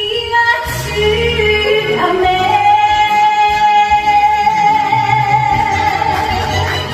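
A woman singing an enka song over a karaoke backing track, holding one long note from about two seconds in, over a steady bass line.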